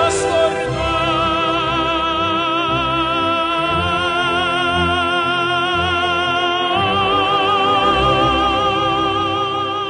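Background music: the close of an Italian pop-opera song, a long note held with vibrato over the accompaniment, moving to another held note about seven seconds in.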